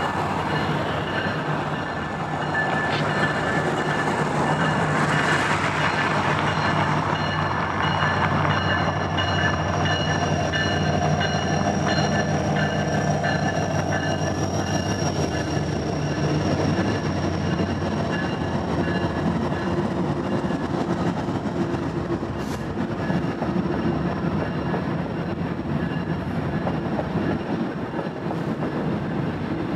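Union Pacific diesel freight locomotives running as they pass close by, their engines a low steady drone. After about eighteen seconds the drone fades and the freight cars roll past, with wheel-on-rail noise and a steady high-pitched squeal.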